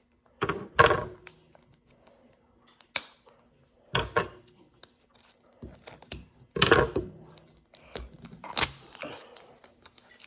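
Toy packaging being handled and opened: irregular bursts of crinkling and clicking, several clusters a second or two apart.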